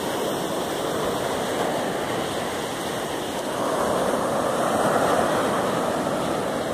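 Surf on a sandy beach: small waves breaking and washing up the sand in a steady rush, swelling louder about three and a half seconds in as a wave runs up the shore and then easing.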